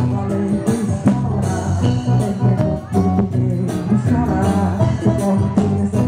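Live band music with a woman singing into a microphone over a steady beat and bass.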